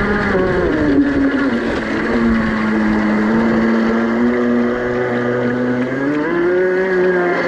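Motor of a scratch-built radio-controlled model speedboat running under way, heard from on board. Its pitch drops about a second in, holds lower, and rises again near the end.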